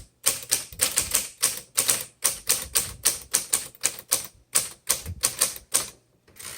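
Manual typewriter keys striking in quick, uneven runs of sharp clacks, about four or five a second, stopping shortly before the end.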